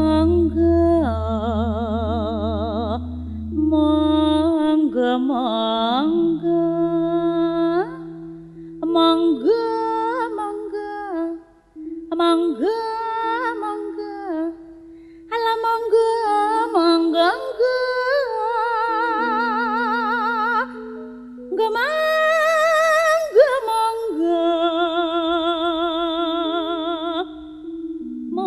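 A Javanese jineman song: a woman sings a slow melody, ornamented and with wide vibrato, over electronic keyboard accompaniment with held notes. A deep pulsing bass sounds for the first few seconds, then drops out.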